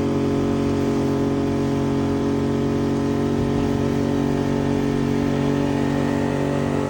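Old 60-horsepower Mercury two-stroke outboard running steadily under way. The engine is struggling, which the owners put down to a fuel problem, with air in the fuel system or a collapsed fuel line.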